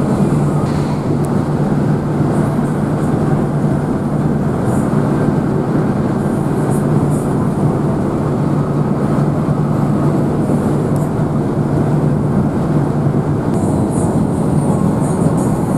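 Steady engine and road drone of a Hino RK8 coach bus under way, heard from inside the cabin, with a constant low hum.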